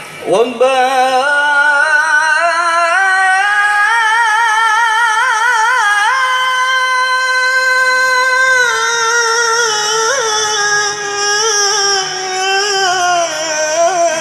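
A solo voice from a marawis group sings long, drawn-out notes. The pitch slides up at the start, wavers with vibrato in the middle, and then holds steady for a couple of seconds before easing down.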